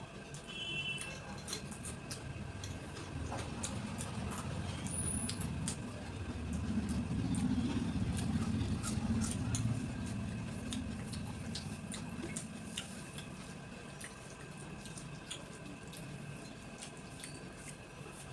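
Close-miked eating sounds: chewing and mouth and utensil clicks, with a low rumble that swells and fades around the middle.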